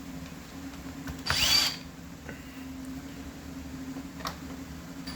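A power driver briefly spins up with a rising whine about a second in, backing out screws during a chainsaw teardown. Small clicks of parts and tools are heard later over a steady low hum.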